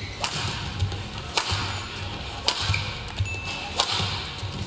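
Rackets striking a shuttlecock back and forth in a badminton rally: four sharp hits, about a second apart.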